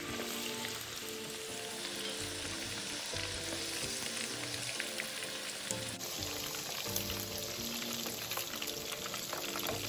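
Coated pork slices deep-frying in hot oil in a wok, a steady crackling sizzle as they are stirred with chopsticks; the oil is held at high heat.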